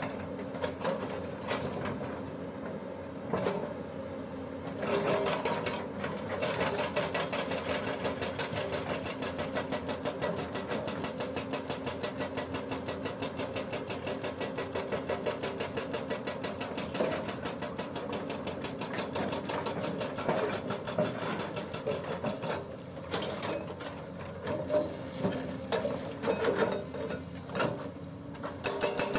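Hydraulic breaker on a Hyundai 210LC-7 excavator hammering in a rapid, even rattle of blows, with the excavator's diesel engine running underneath. The hammering breaks off briefly near the start and stops and starts several times toward the end.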